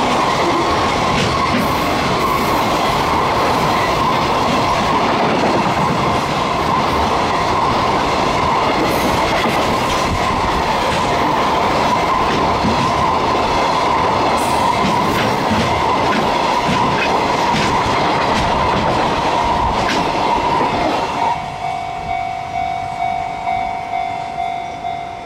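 Freight train wagons running through a level crossing at speed: a loud, steady rush and clatter on the rails with a steady high tone over it. About 21 seconds in the train noise falls away, and the level-crossing warning bell rings on alone, about two and a half strikes a second.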